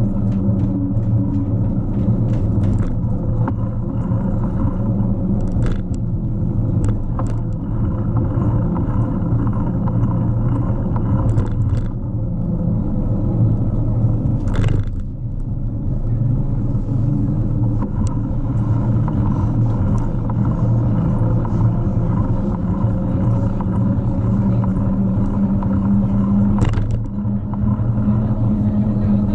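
Steady rumble of a bicycle rolling over a grated bridge deck and paving, picked up by a camera riding on the bike. Occasional sharp knocks come from bumps in the path, the clearest about halfway through and near the end.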